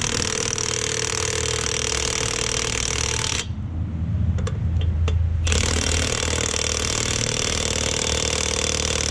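Impact wrench hammering lug nuts tight on a truck wheel, in two long runs with a break of about two seconds starting about three and a half seconds in. A low hum carries on through the break.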